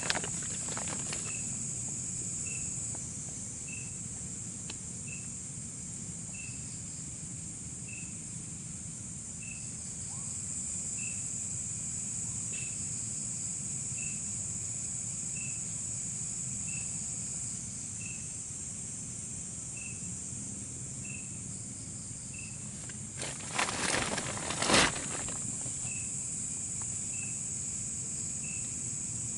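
Night insect chorus, a steady high-pitched buzz, with a short high call repeating about every second and a half. Near the end a brief cluster of knocks or rustles stands out as the loudest sound.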